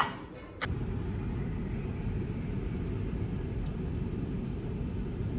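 A sharp click at the start. Then, from about half a second in, the steady low road rumble of a car driving, heard from inside the cabin.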